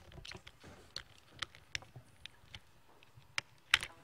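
Irregular clicks and knocks of a laptop being handled and its keys pressed, about a dozen, with the loudest knock near the end.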